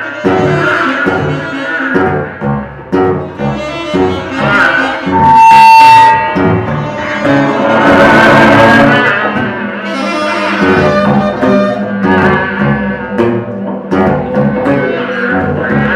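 Free improvised music: saxophone amid dense, shifting pitched layers, with a loud steady high tone held about a second near the middle and a noisy swell soon after.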